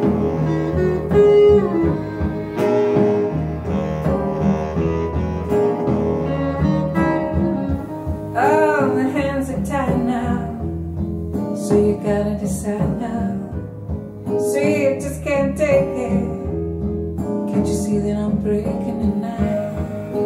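A song playing through Xavian Giulietta floorstanding hi-fi speakers: an instrumental passage of guitar and bass with strings, with a sliding melody line about halfway through.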